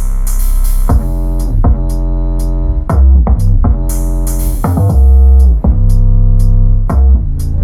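Electronic music with a drum-machine beat, synth notes sliding down in pitch, and heavy deep bass, played loud through a Klipsch Cinema 400 2.1 soundbar and its subwoofer.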